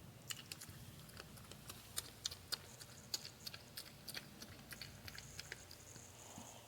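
Porcupine chewing peanuts: irregular crunchy clicks and snaps of teeth on shell, a few louder ones about two to three seconds in.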